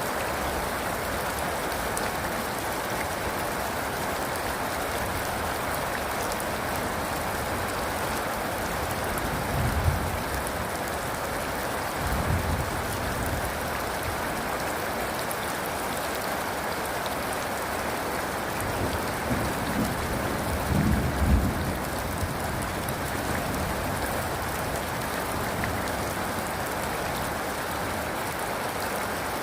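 Steady rain, an even hiss of drops falling on a surface, with a few brief low rumbles of distant thunder: two about ten and twelve seconds in, and a longer one around twenty seconds in.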